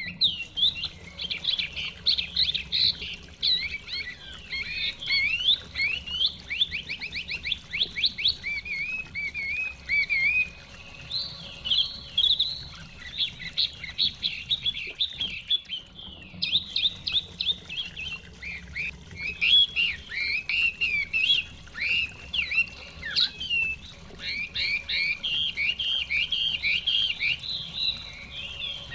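Chinese hwamei (họa mi) singing a long, varied run of rapid whistled phrases, with a short break about halfway through.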